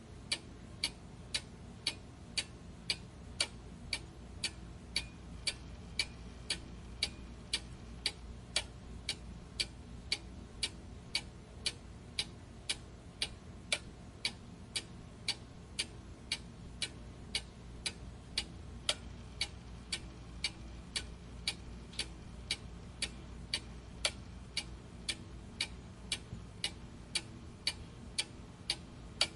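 Clock ticking steadily, about two evenly spaced ticks a second, over a faint low hum.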